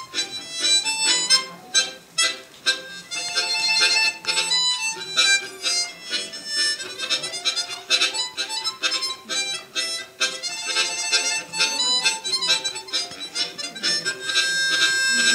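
Harmonica playing a lively melody of short, quick notes, with a long held note near the end.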